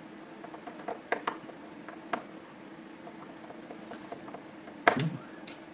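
Light clicks and taps of a precision screwdriver driving T7 screws into the display hinge of a 2008 unibody MacBook Pro, with a louder clack about five seconds in. A steady low hum runs underneath.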